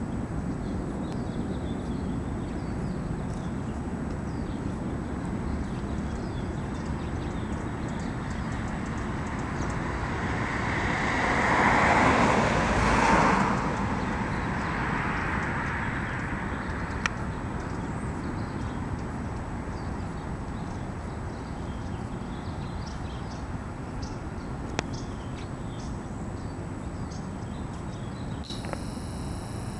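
Steady low rumble of background traffic. A vehicle swells up and passes about ten seconds in, loudest around twelve to thirteen seconds, then fades back into the rumble.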